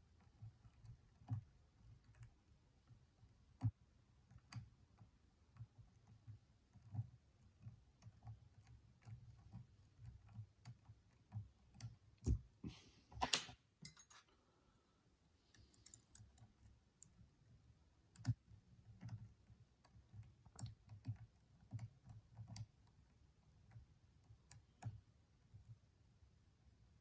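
Faint, irregular small clicks and scrapes of a lock pick and tension wrench working inside a Stanley padlock's cylinder, with a brief louder scrape about halfway through.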